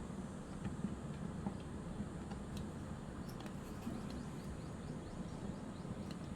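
Faint, scattered small clicks and ticks from a screwdriver and tiny screws being worked on the camera's die-cast grip, over a steady low hum.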